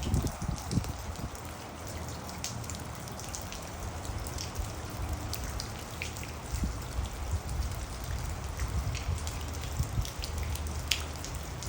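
Steady rain falling, with many separate drops ticking sharply on a hard surface, over a low steady rumble.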